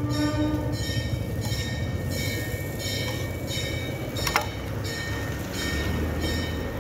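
Music with ringing, bell-like tones over a steady low rumble. A single sharp metal clank, a spatula striking the iron griddle, comes about four and a half seconds in.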